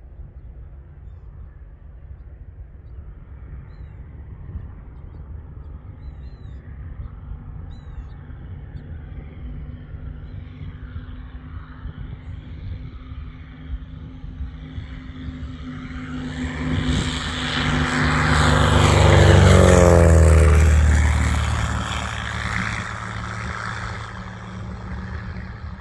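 Stinson single-engine propeller plane on a low flyby: the drone of its piston engine and propeller grows louder over about fifteen seconds. It peaks about two-thirds of the way through, dropping in pitch as the plane passes, then fades as it moves away.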